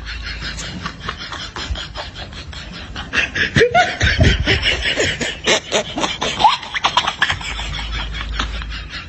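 Laughter: a rapid run of short breathy pulses, swelling into louder laughing with rising pitched whoops from about three seconds in and easing off again near the end.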